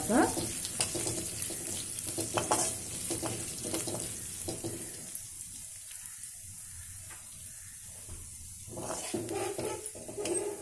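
Coriander seeds, cumin and curry leaves sizzling in a little hot oil in a pan while a spatula scrapes and stirs them, the spices being fried for tempering. The stirring eases off about halfway and picks up again near the end.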